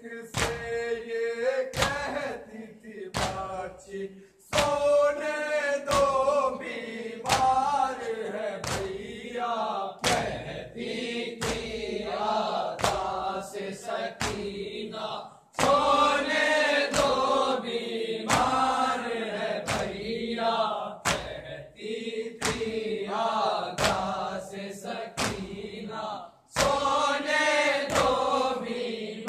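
Men's voices chanting an Urdu noha, a Shia lament, over sharp rhythmic strikes of matam, hands beating chests, a little faster than one a second.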